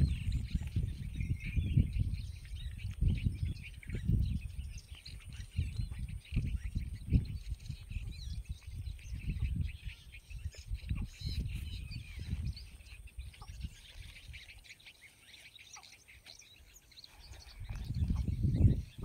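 Wind gusting against the microphone in irregular low rumbles, with small birds chirping faintly in the background. The rumbling eases for a few seconds and picks up again near the end.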